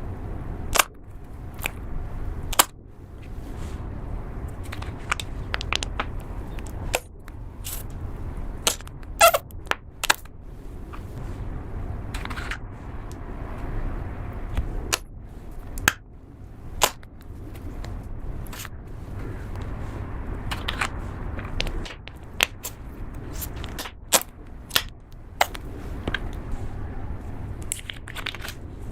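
Slime being squeezed and handled, with sharp pops and clicks coming at irregular intervals over a low, steady rumble.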